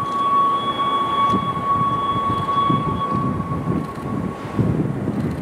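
Vintage 1917 Lo-V subway train running along elevated track with a dense, uneven rumble. A steady high-pitched whine fades out about three and a half seconds in.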